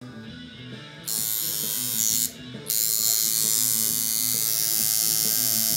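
Electric tattoo machine buzzing. It switches on about a second in, stops briefly a little past two seconds, then runs on steadily as the needle starts lining a stencil on skin.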